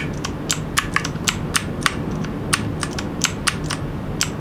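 Redragon K579 mechanical keyboard's clicky blue switches being pressed over and over, about three sharp clicks a second at uneven spacing, as a key held with FN is tapped to cycle the backlight colour. A steady low hum sits underneath.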